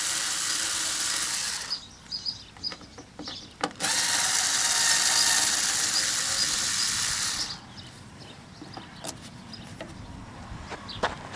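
Power drill-driver backing out the screws of a van's rear door lock cover plate: two steady runs of a few seconds each, the second starting about four seconds in, with light clicks of handling between and after.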